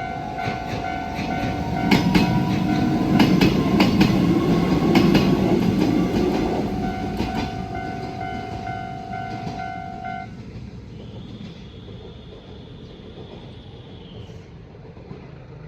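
Mizuma Railway electric train passing over a Japanese level crossing: wheels clack over the rail joints and a low rumble peaks a few seconds in, while the crossing's electronic warning bell rings steadily. The bell stops about ten seconds in and the train's rumble fades away.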